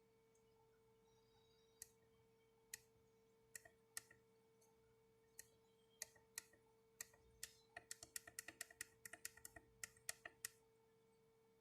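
Faint, sharp clicks of small buttons being pressed, a few spaced apart and then a fast run of presses for about three seconds, over a faint steady hum.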